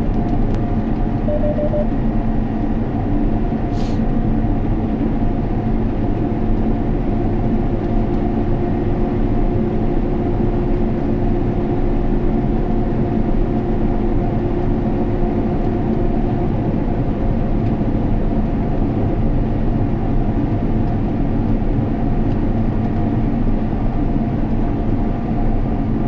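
Steady drone of heavy harvest machinery running, with several steady whining tones over a low hum. There is a brief click about four seconds in.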